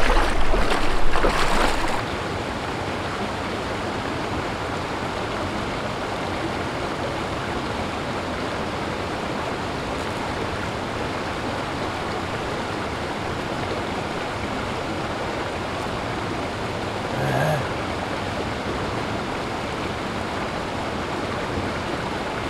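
Steady rushing of the flowing water of the Fall River. A low rumble sits under it for the first two seconds, and a short low sound comes about seventeen seconds in.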